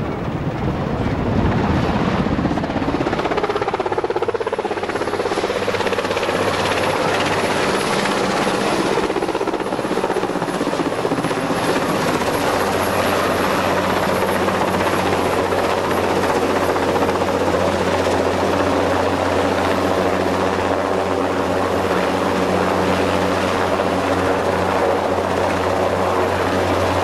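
Westland Wessex helicopter flying in low and close, loud, its turbine whine rising in pitch over the first few seconds as it approaches. It then runs steadily at close range with its rotor beating.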